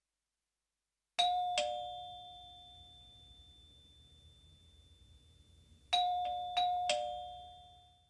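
Two-tone ding-dong doorbell chime: a higher note then a lower one, ringing out and slowly fading. It sounds again near the end, with two higher strikes before the lower note.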